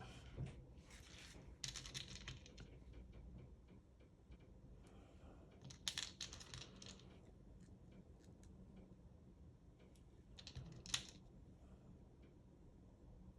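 Faint, scattered clicking and light rattling of small jewellery-making pieces handled on a work surface. The clearest clusters come about six seconds in and again near eleven seconds.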